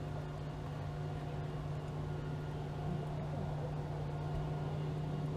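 Steady low hum of the boat's motor running while the boat fishes, one constant low tone with fainter overtones above it.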